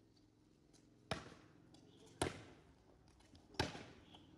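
A volleyball being struck back and forth with giant oversized badminton rackets in a rally: three sharp hollow whacks about a second apart, each with a brief ring.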